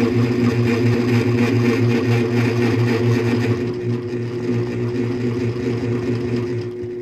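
Sit-down quilting machine sewing continuously, its motor and needle giving a steady hum; it is a little quieter in the second half.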